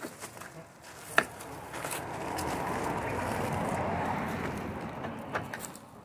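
A vehicle passing on the street, its tyre and road noise swelling and fading over about four seconds, with a sharp click about a second in.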